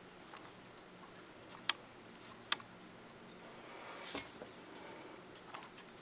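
Quiet room tone with a faint steady hum, broken by two sharp clicks under a second apart and a brief rustle about four seconds in: handling noise while a handheld camera is zoomed and refocused.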